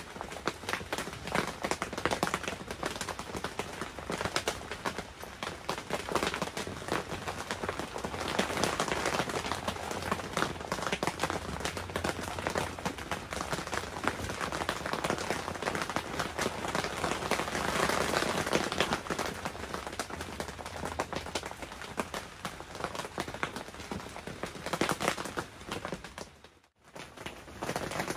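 Steady rain falling on a clear tent, a dense hiss made of countless small drop hits that swells a little midway and cuts out briefly near the end.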